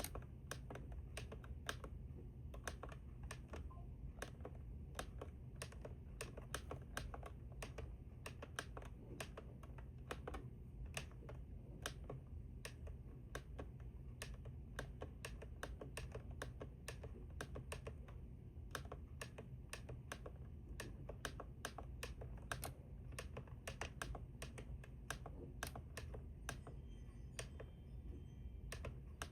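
Faint, irregular clicking of the Maxx digital weather radio's buttons being pressed over and over, often several presses a second, with a low steady hum underneath.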